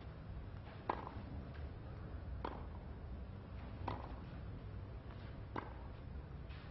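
Tennis rackets striking the ball in a baseline rally: four sharp hits about a second and a half apart, over a steady low hum.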